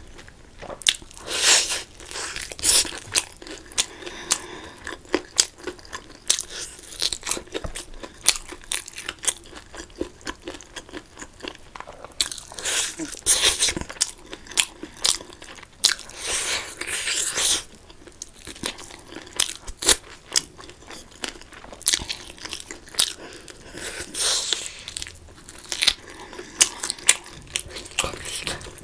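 A person eating: wet chewing and crunching with many small mouth clicks, broken by several louder bursts of a second or so.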